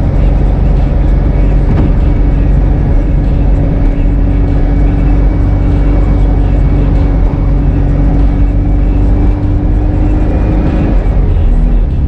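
1776cc air-cooled Volkswagen flat-four with an A1 exhaust and velocity stacks, running at steady revs while driving. A little before the end the engine note drops suddenly.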